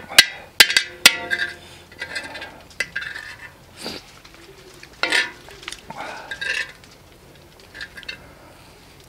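Metal spoon clinking against a stainless steel bowl and scraping across a griddle plate while leftover sauce is scooped up. A few sharp clinks, one with a brief metallic ring, come in the first second or so, then scattered scrapes and taps.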